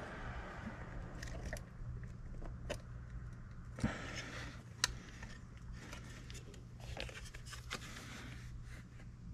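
Small clicks and light scraping of fingers working a flat ribbon cable into its connector tab on a car touchscreen display unit, with a low steady hum underneath.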